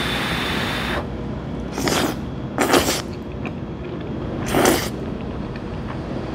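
A person slurping jjajangmyeon (yuni jjajang) noodles: one slurp lasting about a second, then three short, sharp slurps about two, three and four and a half seconds in.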